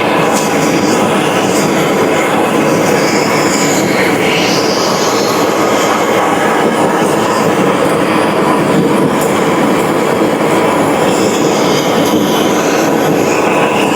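Loud, steady mechanical noise of a machine running, with no breaks.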